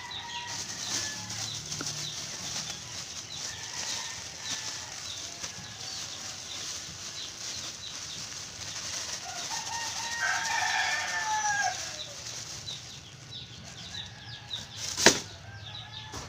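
Plastic bag rustling as grated coconut pulp is shaken out of it into a feed bucket, with chickens clucking and a rooster crowing about ten seconds in. A single sharp knock comes near the end.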